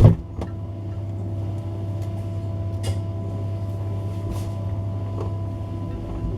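A thump right at the start, then a refrigerator running with a steady low hum and a few faint higher tones over it.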